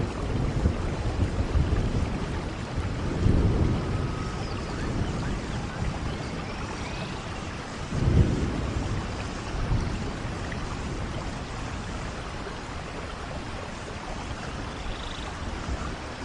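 Rain falling steadily on forest leaves and ground, with low rumbling swells near the start and about 3 and 8 seconds in. The rumbles die away toward the end, leaving a softer steady patter.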